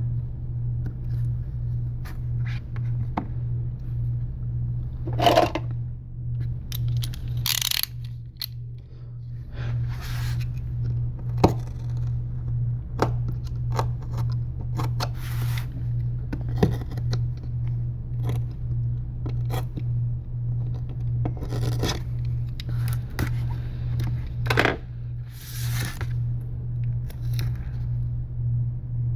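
Scraping, light clicks and short rustles of hands and tools working strips of adhesive tape onto an iPad mini 3's frame, over a steady low hum.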